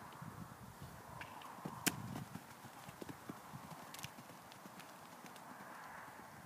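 A pony cantering on an arena surface: faint, irregular hoofbeats, with one sharper knock about two seconds in.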